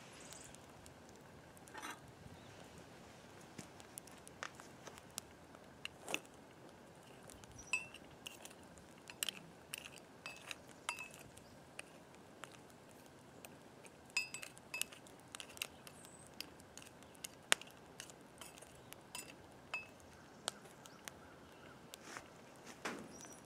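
Metal ladle stirring scrap bullets in a cast-iron melting pot: irregular sharp clinks and taps of metal on metal, some with a short ring, as the unmelted copper jackets are pushed around in the molten lead. The clinks come thickest in the middle and thin out near the end.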